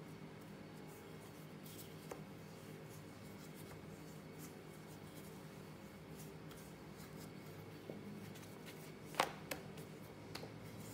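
Quiet handling of puff pastry dough on a silicone baking mat: faint rubbing and pressing as the dough is folded and rolled with a rolling pin, with a few light knocks, the sharpest about nine seconds in. A steady low hum runs underneath.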